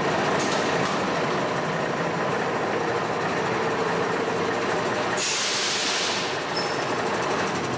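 Fire engine's diesel engine running steadily, with a short burst of compressed-air hiss, as from the air brakes, about five seconds in.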